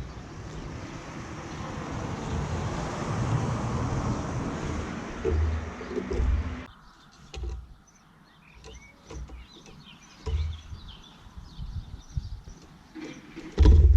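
Short high bird chirps, with a steady hiss for the first half that cuts off abruptly and several loud low rumbling thumps, the loudest near the end.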